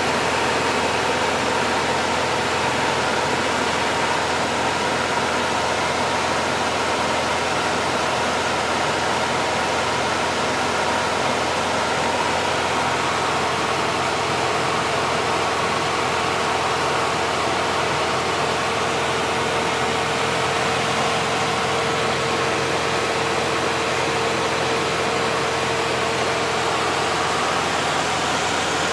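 Cabin noise of a Cessna 177RG Cardinal in flight: its four-cylinder Lycoming IO-360 engine and propeller running steadily under a loud rush of air, heard inside the cabin. A steady hum comes in about halfway through.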